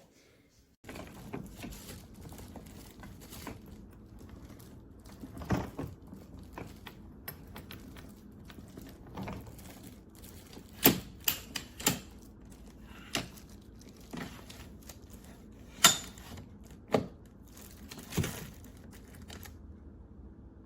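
Hardshell suitcase and its TSA lock being handled: irregular sharp clicks and knocks over a low steady background, the loudest about halfway and again about three quarters of the way in.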